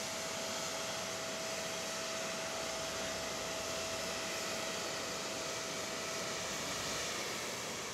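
Steady, even rushing noise with a faint steady whine that fades out near the end.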